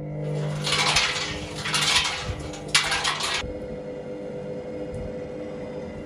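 Fireworks hissing and crackling inside a Candy washing machine's steel drum in three loud bursts over the first few seconds, over a steady hum from the running machine.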